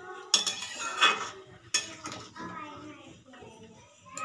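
Metal spatula knocking and clinking against a metal cooking pan of curry, three sharp strikes in the first two seconds, then quieter.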